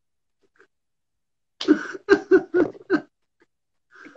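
A man's short burst of laughter, several quick breathy pulses, opening with a harsh cough-like burst, which starts after about a second and a half of silence.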